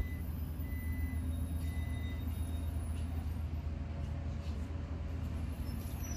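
A steady low rumble and hum of background room noise, with no speech; the threading itself is not clearly heard.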